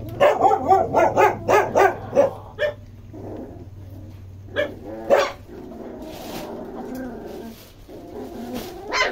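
Puppy barking in a quick run of short, high yaps over the first couple of seconds, then a few single barks and softer drawn-out sounds. It is an angry puppy snapping at its littermates over food.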